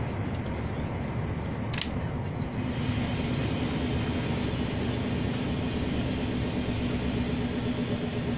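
Engine and road noise inside a heavy truck's cab while driving at highway speed, steady throughout. A short sharp click about two seconds in; just after it a steady low engine hum comes up and holds.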